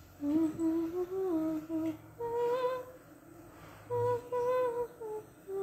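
A person humming a tune in short, held phrases with brief pauses between them.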